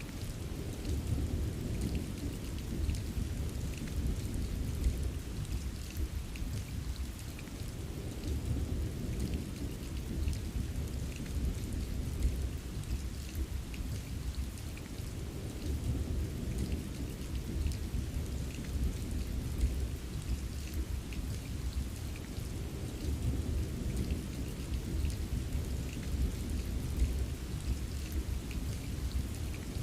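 Steady rain with scattered light drop taps over a continuous low rumble of gently rolling thunder.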